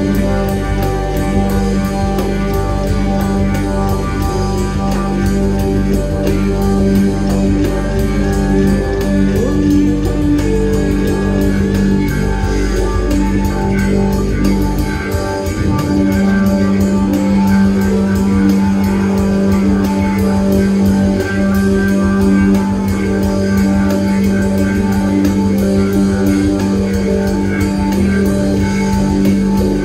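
Live jam-band rock played loud: electric guitar, bass and drum kit in an extended improvised jam over sustained notes and a steady beat. About halfway through, the deepest bass drops away.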